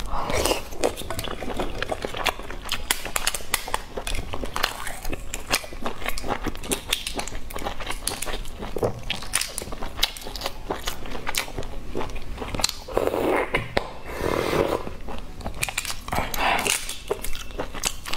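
Shells of cooked eggs crackling and snapping as fingers crack and peel them close to the microphone: a dense, steady run of small sharp clicks. A few short bursts of close-up chewing and mouth sounds come at the start and again about three-quarters of the way through.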